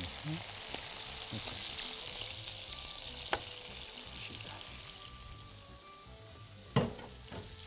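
Chicken breasts and pieces of chicken skin frying in their own fat in a pan: a steady hissing sizzle that thins out in the second half. A sharp click about three seconds in and a loud knock near the end.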